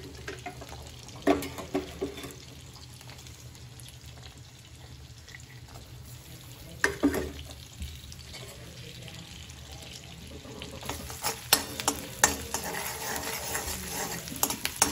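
Chopped garlic sizzling in melted butter in an aluminium kadai, a steady low hiss. A couple of clinks come early on the pan, and near the end a steel ladle scrapes and taps against the pan as the garlic is stirred.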